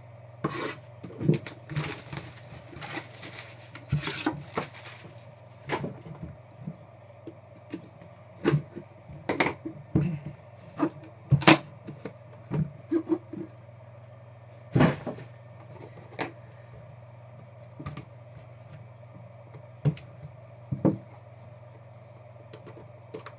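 A trading card hobby box being opened and its cards handled: a few seconds of rustling and tearing packaging, then scattered taps, clicks and knocks of cardboard and cards on a table, over a steady low hum.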